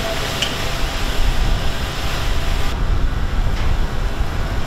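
A large fire in baled waste burning while firefighters' hoses spray it: a loud, steady rumble with hiss over it. The upper hiss drops away a little under three seconds in.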